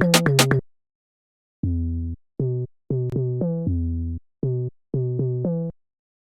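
A dembow beat of drum machine and synth bass cuts off about half a second in; after a short pause a synth bass line plays alone, about nine notes, some short and some held, then stops near the end.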